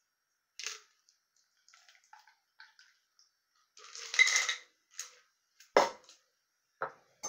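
Ice clinking inside a stainless steel cocktail shaker as a shaken drink is strained through the shaker's strainer into a martini glass. About four seconds in comes a louder clattering burst with a metallic ring as the shaker is shaken to get the last drops out, then a sharp knock just before six seconds and a lighter one near seven.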